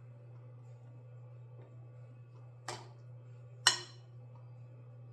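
Kitchen utensil clinking on a dish twice: a light tap, then a sharper ringing clink about a second later, over a steady low hum.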